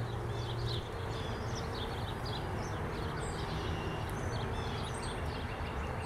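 Honeybees buzzing steadily around an open, busy hive, with birds chirping in the background.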